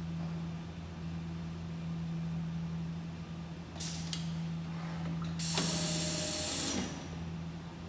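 A steady low machine hum, with a brief hiss of air about four seconds in, then a loud hiss of compressed air lasting about a second and a half that cuts off sharply.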